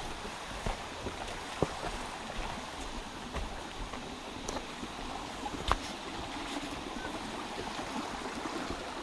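A mountain creek rushing steadily, with a few sharp knocks over it, the loudest just before six seconds in.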